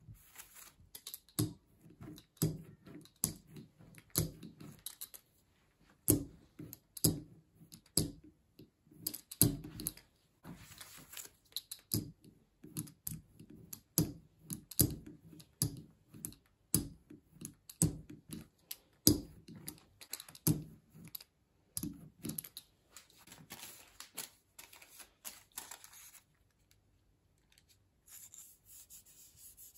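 Rubber brayer rolled back and forth over an inked aluminium-foil lithography plate, giving a series of short tacky clicks and crackles about once or twice a second, with the thin foil crinkling under it. The sounds thin out near the end.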